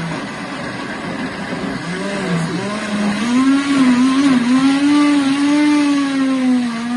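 Electric countertop blender motor running at speed, puréeing tomatoes and pepper in the jar. Its pitch wavers, then rises and gets louder about three seconds in.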